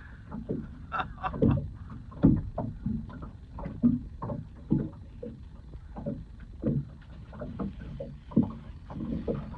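Water lapping irregularly against the hull of a small fishing boat, a string of short, uneven knocks.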